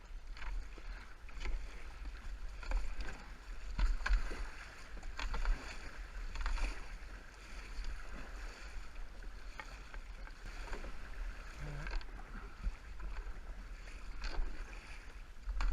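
Paddle strokes dipping and pulling through river water, roughly one a second, with a low wind rumble on the microphone.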